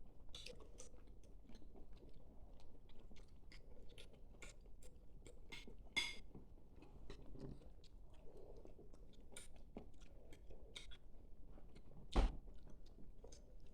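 Chewing food at a meal, with many small mouth and utensil clicks, a sharper click about six seconds in and a louder knock about twelve seconds in.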